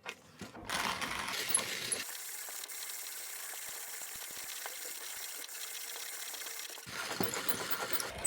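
A 1930s Zassenhaus 2550 Mokka manual conical burr grinder being hand-cranked, grinding coffee beans steadily. It starts about a second in, with its burrs set about one turn out from finest for a classic fine grind.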